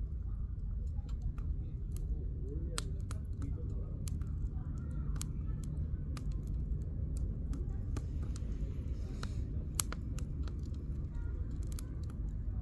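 Wood campfire burning, its firewood crackling with sharp irregular pops over a steady low rumble, one louder pop about ten seconds in.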